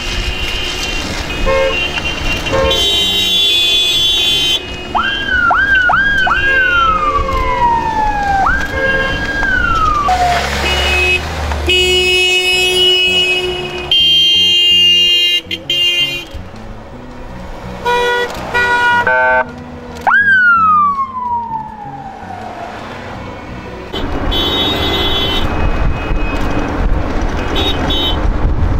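Cars honking their horns in several different tones over engine and traffic rumble. A siren whoops, rising sharply and then sliding down, several times about five to ten seconds in and once more about twenty seconds in.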